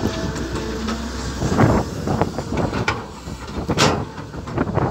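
Caterpillar hydraulic excavator's diesel engine running under load, with several knocks and rattles of dirt and clods as a bucketload is dumped into a steel dump-truck bed and the bucket then digs back into the soil.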